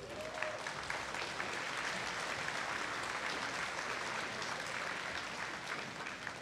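Audience applauding, building up in the first second, holding steady, then thinning out near the end.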